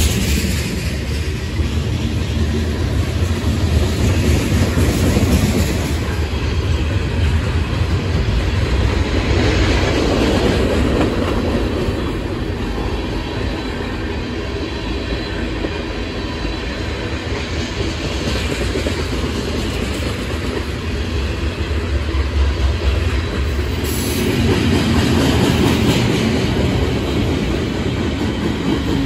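Freight cars of a Norfolk Southern manifest train (tank cars, hoppers, a lumber-loaded centerbeam flatcar and gondolas) rolling past close by: a steady rumble of steel wheels on the rails.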